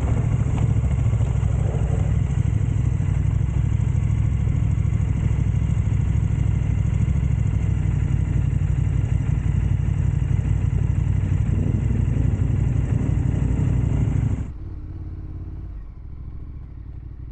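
KTM 1290 Super Adventure R's V-twin engine running at a steady speed on a gravel road, with wind and tyre noise. About fourteen seconds in the sound drops abruptly to a much quieter low rumble.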